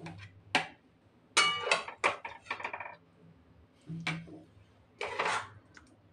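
A metal spatula scraping and clinking against a steel kadhai and plate as curry is dished out, in about five separate clatters. One, about a second and a half in, has a brief metallic ring.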